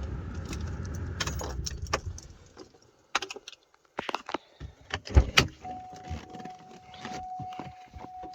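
A vehicle engine running, then shut off about two and a half seconds in. Keys jangle among sharp clicks and knocks, and a steady single-pitch electronic tone starts about halfway through.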